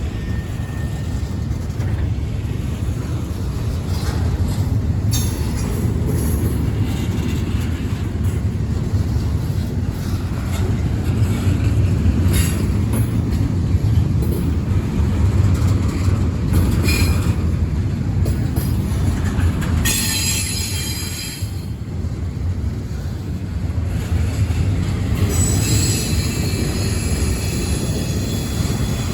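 Freight cars of an intermodal train rolling past with a steady low rumble and occasional clanks from the wheels and couplers. The wheels screech and squeal on the rail briefly about two-thirds of the way through and again near the end.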